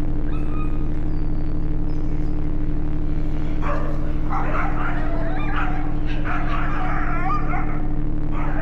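Dogs yelping and barking in repeated bursts over a steady low hum, the dog sounds starting a little before halfway through.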